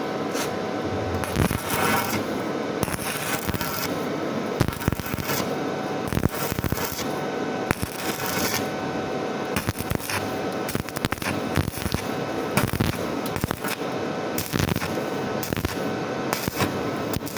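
Stick welding arc on thin square tubing, a continuous crackling sizzle with many sharp pops.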